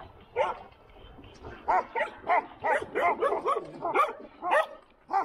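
Dogs barking repeatedly: a single bark about half a second in, then a fast run of barks, some overlapping, from a little under two seconds in until near the end.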